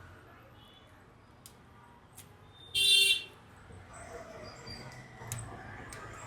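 A short, loud electronic beep, about half a second long, nearly three seconds in, with a few faint clicks of small tools around it.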